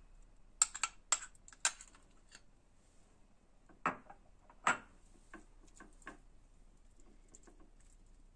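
Metal spoon clinking and scraping against a glass bowl and a ceramic serving dish while thick strained yogurt is spooned out: a few sharp clicks in the first two seconds, two louder knocks about four and five seconds in, then lighter taps.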